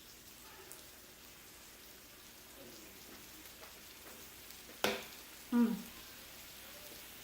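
Thin-sliced lamb sizzling steadily on a grill. A sharp knock comes about five seconds in, then a short low, slightly falling sound just after.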